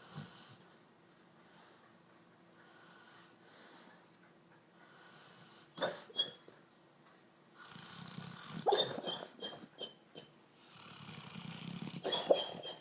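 Snoring: slow snore breaths, with quiet breathing between them. A short one comes about halfway in, then two longer, louder ones near the end, each with short snorts at its peak.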